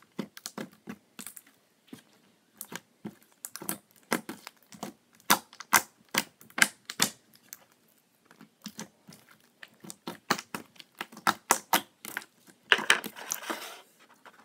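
Metallic purple slime being kneaded, folded and stretched by hand, giving irregular sharp clicks and pops, several a second with short pauses. Near the end there is a longer, denser squishing stretch.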